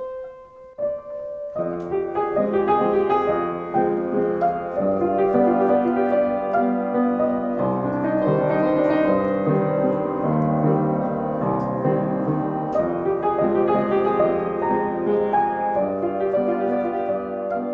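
Piano playing: a lone note at first, then fuller chords and a melody from about a second and a half in.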